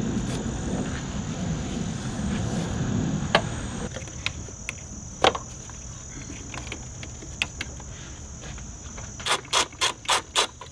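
Steady high-pitched trill of insects, with scattered sharp clicks of hands and tools working on parts under a car's hood. Near the end comes a quick run of five clicks, about three a second.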